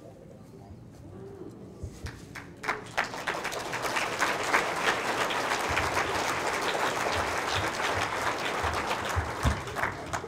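Audience applauding: a few scattered claps start about two seconds in, swell into steady applause, and stop near the end.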